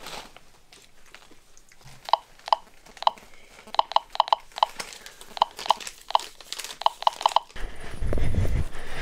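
MKS-01SA1M dosimeter-radiometer chirping in short, identical beeps at irregular intervals, each chirp a counted radiation event, with the display reading about 2 µSv/h of gamma. Near the end a low rumbling noise takes over.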